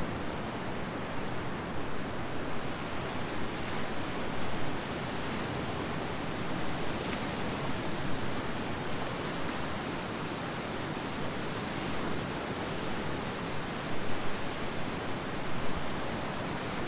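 Ocean surf on a beach: a steady rush of breaking waves, with a few louder surges near the end.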